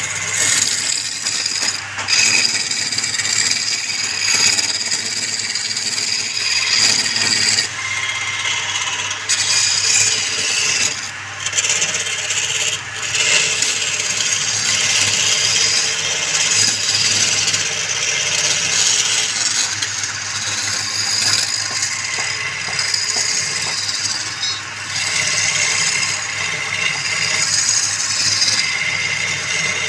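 Wood lathe running with a tool working the spinning wood: a continuous hiss over a steady low motor hum, dipping briefly a few times.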